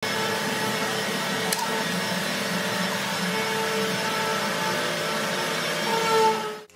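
Steady drone of woodworking workshop machinery, with a sharp click about one and a half seconds in; it cuts off suddenly near the end.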